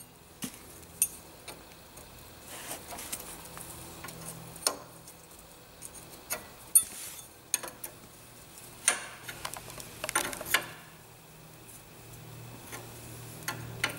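A spanner clicking and clinking on the castellated nut of a Land Rover's front swivel assembly as the nut is fitted and tightened: scattered light metal ticks, with a faint steady low hum underneath.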